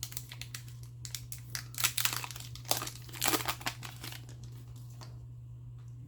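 A foil trading-card pack wrapper crinkling and crackling in the hands as it is opened. The crackling goes quiet about two-thirds of the way through, over a steady low electrical hum.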